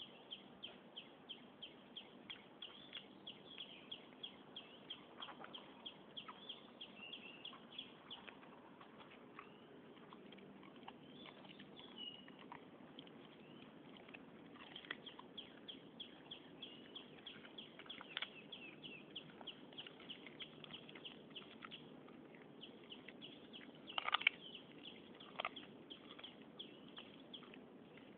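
Small birds chirping repeatedly in the background, faint, with a few louder sharp sounds, the loudest a few seconds before the end.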